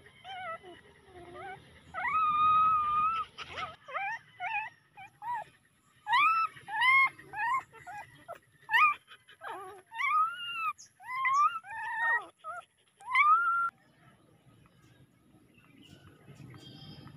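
Ten-day-old puppies whimpering: a string of short, high cries that rise and fall in pitch, with one longer held cry about two seconds in. The cries stop about three-quarters of the way through.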